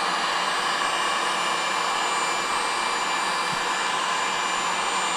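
Electric heat gun running steadily, blowing hot air to heat the engine crankcase.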